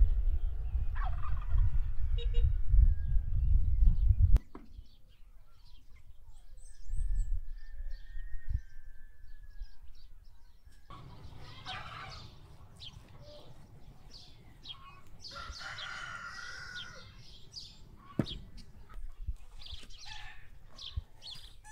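A loud low rumble for about the first four seconds that cuts off suddenly, then poultry calling in repeated bursts, with the busiest stretch of calls a little past the middle.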